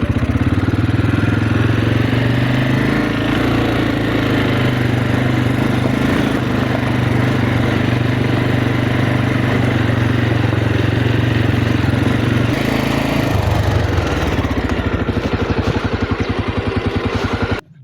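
Motorcycle engine running steadily under load while riding. Its note changes about three-quarters of the way through into a more distinctly pulsing beat, and it cuts off suddenly near the end.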